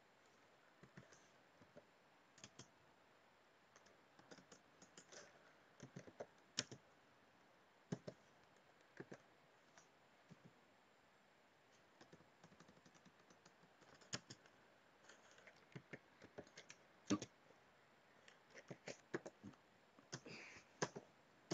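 Faint typing on a computer keyboard: irregular single keystrokes with pauses between them, coming in quicker clusters near the end.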